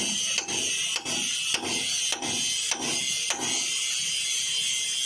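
Hand hammer striking a steel drift pin in a steady run of about seven blows, roughly two a second, stopping a little past halfway. The pin is being driven into a cloth-packed bore, and each blow forces the tractor clutch bearing a little further out.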